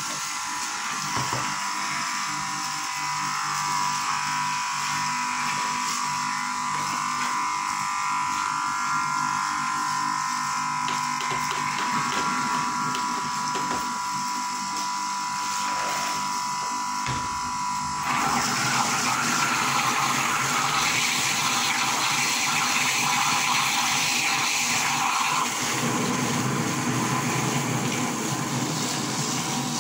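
Electric soybean grinding machine running steadily with a motor whine while it grinds soaked soybeans. About 18 seconds in the sound turns louder and rougher as water and wet bean slurry go through the mill.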